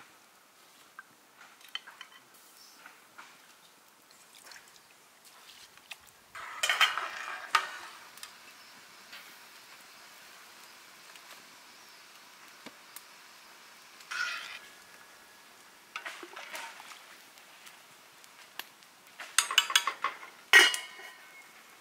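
Metal cookware clattering: an aluminium pot, its lid and a metal ladle clink and knock in several short bursts, the loudest near the end.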